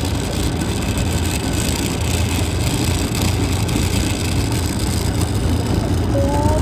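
12-volt Yamaha Raptor 700R ride-on toy ATV driving over asphalt: a steady whir of its battery-powered electric drive and the rumble of its wheels on the pavement.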